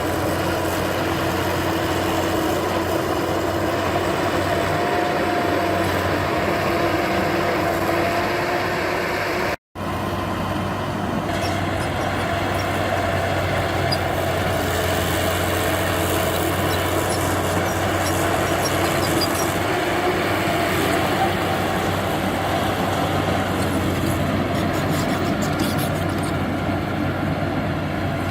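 Diesel engine of heavy earthmoving machinery running steadily under work, with a low hum and a slightly wavering engine note. The sound cuts out for an instant about ten seconds in, then carries on the same.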